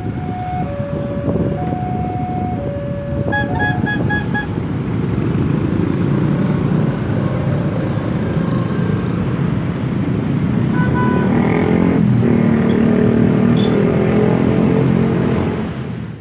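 Railway level-crossing alarm sounding two alternating tones for about three seconds, then a quick run of short horn toots, then steady engine and road noise of traffic that grows louder over the last few seconds.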